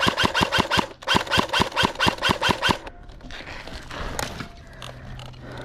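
Airsoft gun firing on full auto in two long bursts of about seven shots a second, with a short pause between them.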